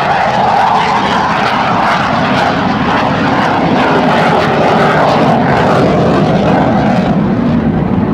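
Twin jet engines of an F/A-18 Hornet fighter making loud, steady jet noise as it passes and banks. Near the end the sound shifts lower in pitch.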